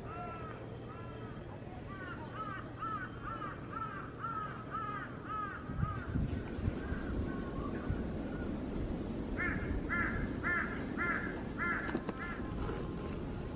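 Crows cawing in repeated series of short calls, a quick run of about three a second in the first half and another group near the end. From about halfway, wind gusts buffet the microphone with a low rumble.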